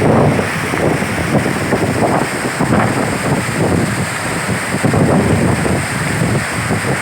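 Waterfall: a steady rush of falling water, with wind buffeting the microphone in uneven low gusts.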